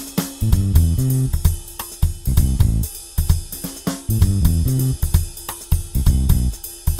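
Background music with a steady drum-kit beat and a stepping bass line.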